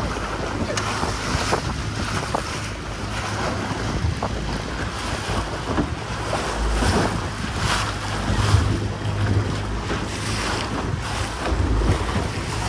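Small open motorboat running at speed: wind buffeting the microphone and water rushing and splashing along the hull over a low, steady drone.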